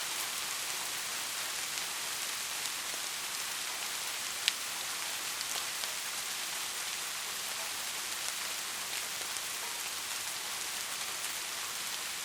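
Steady rain hissing on a surface, with scattered individual drops ticking and one sharper drop about four and a half seconds in.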